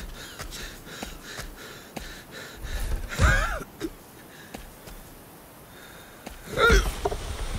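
Sheep straining with effort, two loud gasping grunts with a bending pitch: one about three seconds in and one near the end, with quieter breathing and faint scuffing between them.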